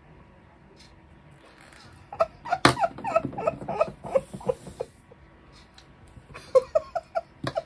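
A woman's quiet, wordless mutters and half-laughs, in two short spells, with one sharp tap about two and a half seconds in.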